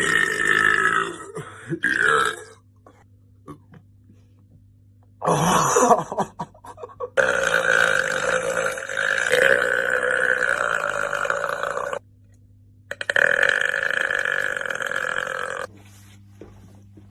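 Men burping: a belch tailing off at the start, a short one about five seconds in, then two long drawn-out belches, the first lasting about five seconds and the second about three.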